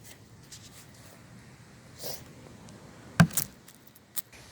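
Quiet handling noises of work on a wooden door frame, with one sharp knock about three seconds in and a fainter click near the end.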